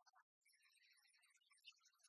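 Near silence, with only faint scattered ticks and hiss.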